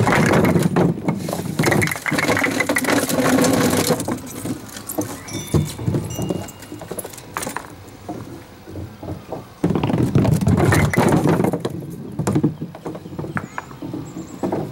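Small 10-inch wooden bowling pins on a string pinsetter clattering and rattling on the wooden pin deck. In the first few seconds the knocked-down pins are pulled back up and reset; about ten seconds in a 2.2-pound composite ball strikes the reset rack, and the pins knock against each other and the deck as they fall.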